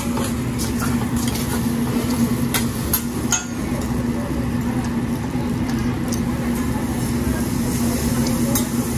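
Steady hum of the hibachi grill's exhaust hood, with one constant low tone, under a few sharp metal clicks and clinks from the chef's spatula on the steel griddle and cutlery on plates, the clearest between about two and a half and three and a half seconds in.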